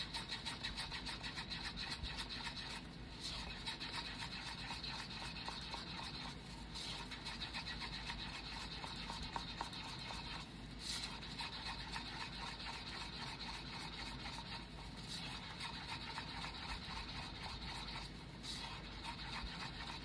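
Stir stick scraping round the inside of a paper cup in rapid, repeated strokes, mixing black pigment powder into epoxy resin.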